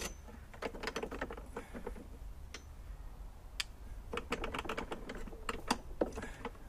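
Hand ratchet clicking in quick runs of sharp ticks, with short pauses between strokes, as it undoes a lawnmower's handlebar bolt.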